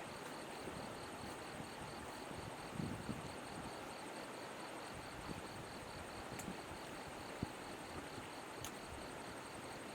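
Night insects calling in a fast, evenly pulsed high chirp, about five pulses a second, over a steady hiss of flowing river water, with a couple of soft knocks.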